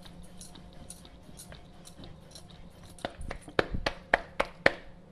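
Wooden rolling pin rolling out naan dough on a counter with faint soft scraping, then a quick run of about six sharp slaps and knocks about three seconds in as the rolled dough is lifted and handled by hand.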